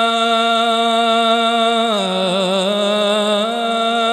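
A man's voice reciting the Quran in melodic tajweed style, drawing out one long vowel without a break. About two seconds in, the held note dips lower with a trembling ornament, then returns to the first pitch near the end.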